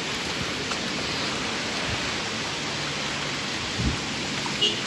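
Steady rain hissing down onto a flooded street, with one dull thump just before four seconds in.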